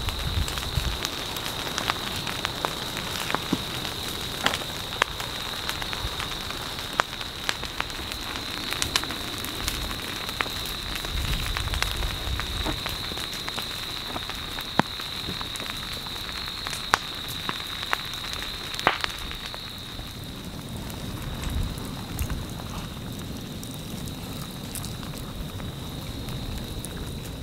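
Ferns and brush burning where the lava flow meets the forest: a steady hiss of fire full of sharp crackles and pops, with low rumbling swells now and then. A thin, steady high-pitched tone runs underneath.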